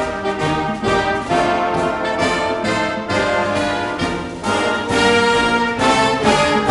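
Background music led by brass instruments, with a steady rhythm of changing notes.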